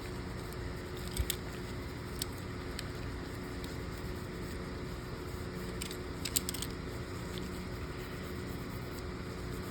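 A few light clicks and small handling noises, clustered a second in and again around six seconds in, over a steady low background hum.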